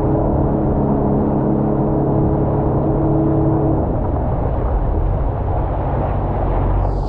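2020 Sea-Doo FishPro jet ski engine running under way, with a low rumble and wind and water noise. Its steady engine tone fades a little past halfway through while the rumble carries on.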